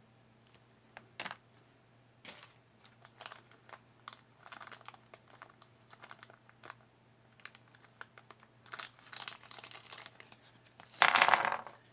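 Hands handling small jewelry items: crinkling rustles and small scattered clicks and taps, with one louder rustle near the end.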